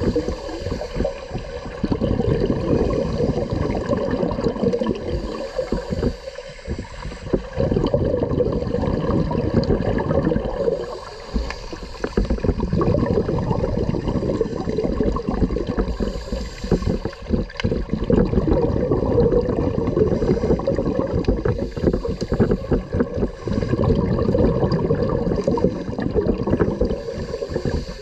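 Muffled underwater gurgling and rumbling of scuba divers' exhaled bubbles and moving water, picked up by a camera under water. The sound dips briefly a few times between breaths.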